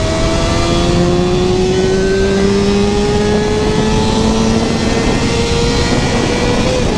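Kawasaki ZX-6R inline-four with a full Two Brothers exhaust accelerating in one gear, its note climbing slowly and steadily for about seven seconds, then dropping sharply at an upshift at the very end. Heavy wind rumble on the helmet microphone underneath.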